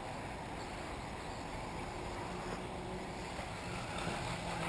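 Electric 1/8-scale RC off-road buggies running on the track, heard as a steady mix of motor whine and tyre noise, with faint steady low tones coming in a little over two seconds in. Wind noise on the microphone.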